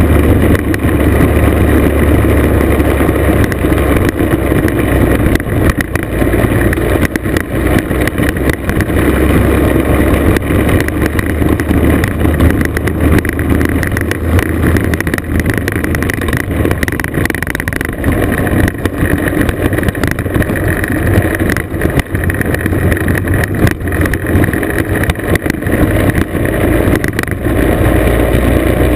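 Classic two-stroke scooter engine running steadily under way, heard on board the scooter, mixed with road rumble and frequent small knocks from riding over a rough gravel road.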